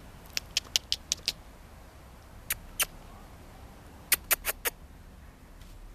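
Short, sharp mouth squeaks, a person's kissing calls to draw puppies in. They come in three runs: about six quick ones in the first second and a half, two near the middle, and four more near the end.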